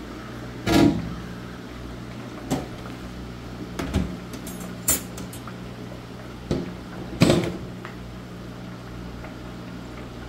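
Wire fry basket and lid of a Masterbuilt electric turkey fryer clunking and knocking as the basket is lifted out and set down, about six knocks with the loudest about a second in and near the seven-second mark. A steady low hum runs underneath.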